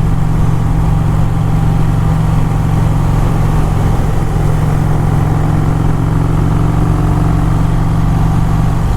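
Motorcycle engine running steadily under way, its low note holding an even pitch and level throughout.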